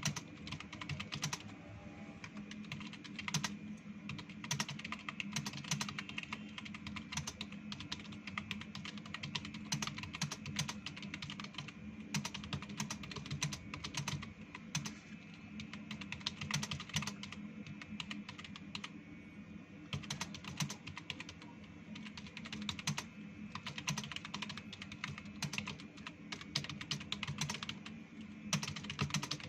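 Fast, continuous typing on a computer keyboard, keys clattering several times a second, with a few short pauses.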